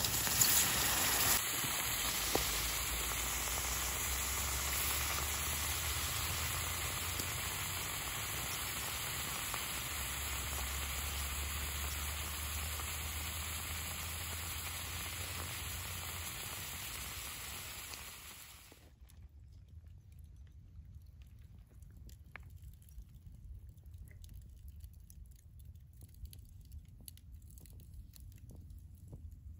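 Hot stones dropped into water in a prickly pear cactus pad, sizzling and hissing steadily as the water boils around them, louder as a stone goes in at the start. The hiss cuts off suddenly about 19 seconds in, leaving faint scattered crackles of a campfire.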